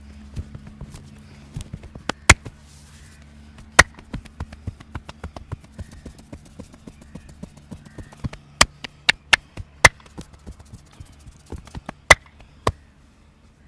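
Hand strikes and cracks of a head and neck massage. A run of quick light taps, with about eight much louder sharp cracks scattered among them.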